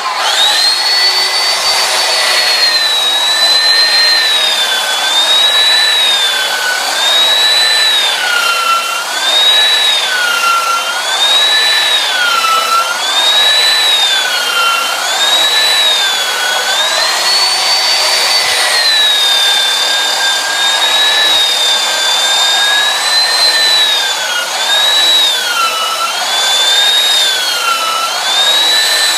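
Belt sander running continuously while rough-sanding a weathered wooden board, its motor whine rising and falling in pitch about every two seconds as the load on it changes.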